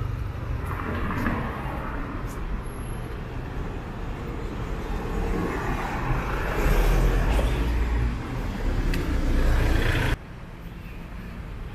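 City street traffic: vehicle engines and tyres rumbling as cars pass, louder in the second half as a vehicle goes by close. About ten seconds in, the sound drops abruptly to a quieter background.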